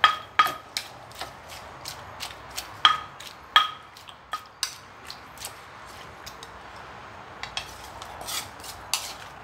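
Wooden pestle pounding sticky-corn som tam in a clay mortar: irregular sharp knocks, several with a short ringing tone from the clay. The knocks are strongest in the first four seconds, then lighter taps, with another flurry near the end.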